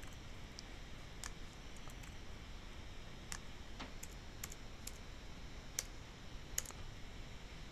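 Scattered light clicks of a computer keyboard and mouse during on-screen text editing, a dozen or so at uneven intervals over a faint steady hiss.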